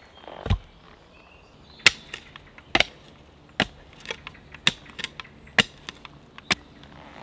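Folding army entrenching tool chopping into soil: a dull thump about half a second in, then a run of sharp strikes about every half second to second.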